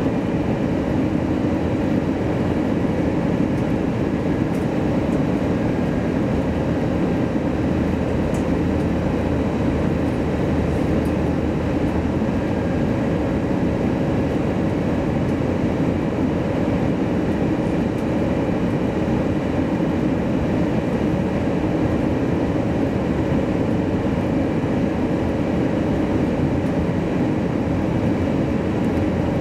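Steady cabin noise inside an airliner on final approach: an even, continuous rumble with a few faint steady tones above it.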